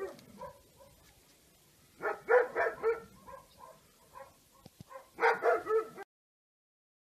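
Chow chow puppy barking: two quick runs of short barks, one about two seconds in and one about five seconds in.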